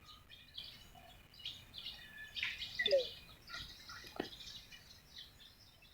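Small birds chirping faintly and intermittently, short scattered calls.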